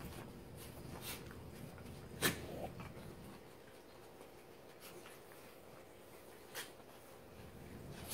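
Dachshund puppies play-wrestling with an adult dachshund: faint scuffling with a handful of short, sharp noises, the loudest a little over two seconds in.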